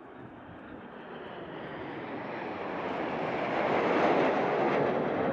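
Formation of four BAE Hawk jet trainers flying past, the rushing noise of their Adour turbofan engines swelling steadily to its loudest about four seconds in.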